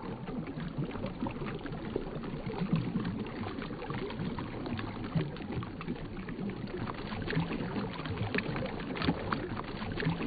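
Shallow, rocky woodland stream babbling over stones: a steady rush of water with many small scattered gurgles.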